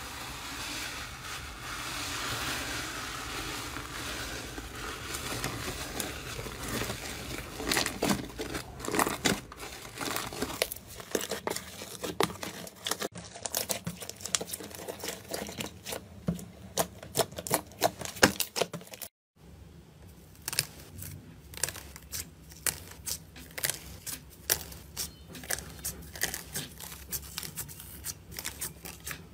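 Hands squishing, pressing and stretching slime. For the first several seconds fluffy cotton slime gives a dense, soft crackly hiss. After that come many sharp clicks and pops as glossy slime and gold-foil-covered slime are kneaded and pressed, with a brief break a little past the middle.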